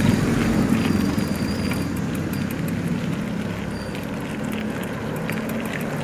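Street traffic heard from a moving bicycle: a motor vehicle's engine running close by and slowly fading, over a steady road noise, with faint scattered clicks in the second half.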